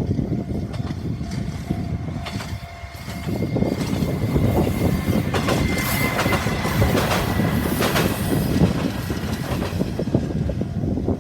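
A Tenryu Hamanako Railway diesel railcar passing close by. Its wheels clack over rail joints in pairs of knocks above a loud rumble, with a steady high squeal running through the middle.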